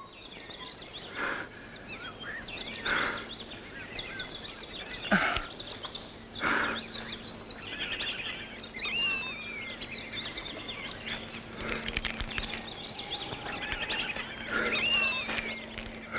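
Swamp ambience of many bird calls and chirps, with a few louder calls about a third of the way in and a low steady hum that comes and goes.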